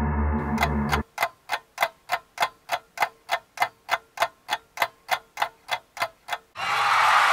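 Clock-ticking sound effect: steady, sharp ticks about three a second, after a low ambient music drone cuts off about a second in. Near the end a loud burst of music abruptly takes over.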